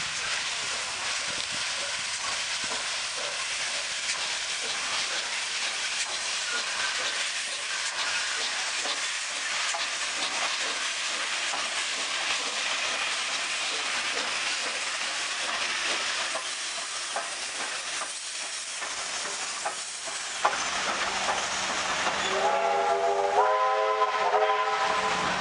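AD60-class Beyer Garratt steam locomotive 6029 and its passenger train passing close by with a steady hiss of steam and rolling wheels. Near the end a multi-note chime whistle sounds for about three seconds.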